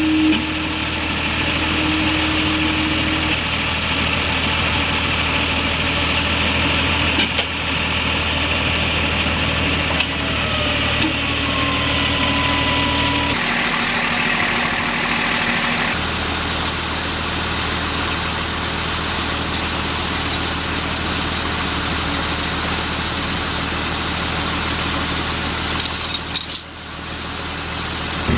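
Heavy military truck diesel engines running steadily, a constant low drone; the sound changes abruptly about 13 and again about 16 seconds in.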